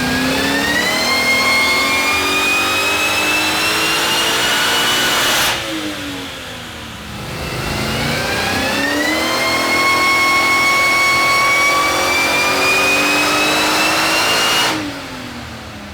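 Built 389-cubic-inch GM iron-block V8 with a factory LSA 1900 Eaton supercharger making two full-throttle dyno pulls. The supercharger whine and engine note climb steadily in pitch through each pull. Each pull cuts off suddenly, about five and a half seconds in and again near the end, and the revs fall away.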